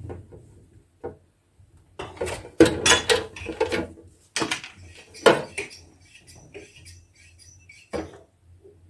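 Dishes and food containers being handled and set down: a run of clinks, knocks and clatters, busiest about two to four seconds in, with single knocks around four and a half, five and eight seconds.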